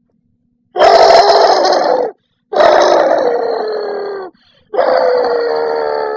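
A dog giving three long, loud howling moans, each about a second and a half and sliding slightly down in pitch, with short pauses between them.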